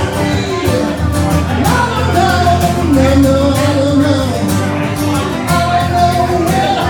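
A man singing, with held, gliding notes, while strumming an acoustic-electric guitar: a solo live performance of a song.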